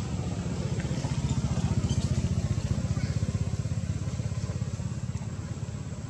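A vehicle engine running with a low, rapid pulse. It grows louder up to about two seconds in, then slowly fades, as if passing by.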